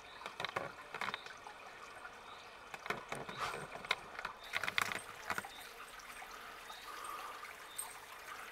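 Flank steak sizzling on the grate of a gas-fired high-temperature steak grill: irregular small crackles and pops of fat over a faint steady hiss.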